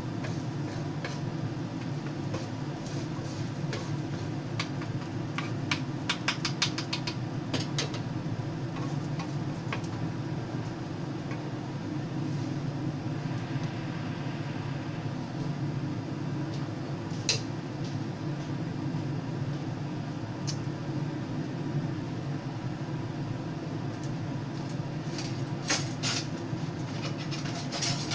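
Rice frying in a nonstick pan on a gas stove, with a steady low rumble under it. A wooden spatula clacks and scrapes against the pan in a quick series about six seconds in, and again a few times near the end.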